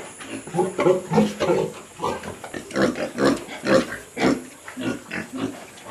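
Pigs grunting in a run of short calls, about two or three a second.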